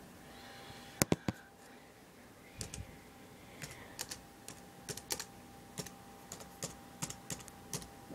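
Typing on a laptop keyboard: irregular key clicks at about one or two a second. Three sharper, louder clacks come about a second in.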